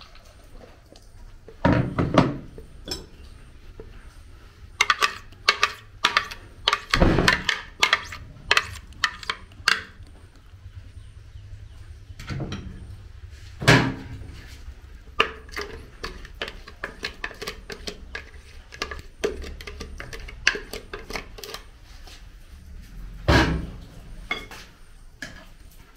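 Kitchen utensils and dishes clinking and knocking irregularly. A few heavier thuds stand out among the lighter clicks, about two seconds in, around seven and fourteen seconds, and near the end.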